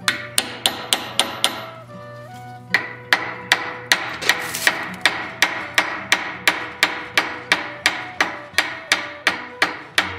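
Hand hammer striking red-hot steel held in a blacksmith's vise as a vulture head is forged. There is a quick run of about six blows, a pause of about a second, then steady blows about three a second.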